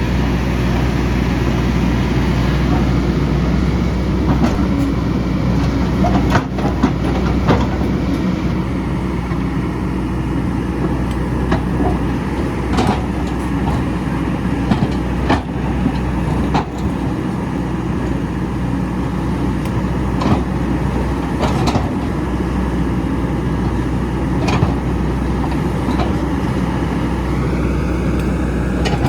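Excavator's diesel engine running steadily under load as it works a rocky hillside, with scattered sharp clanks and knocks of the bucket and rock.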